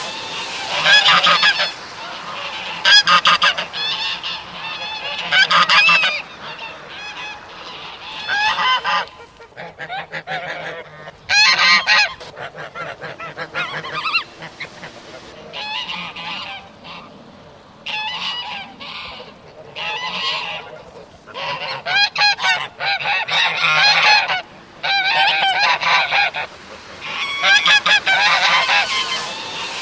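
Geese honking and chattering in repeated bursts of a second or two, with short lulls between.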